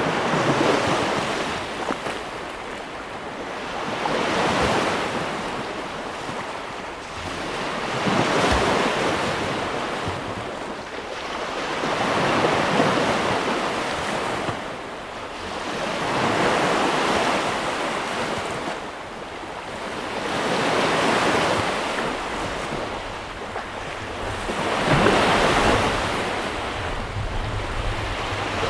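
Sea waves breaking and washing on the shore. The surf swells and falls about every four seconds, about seven waves in all.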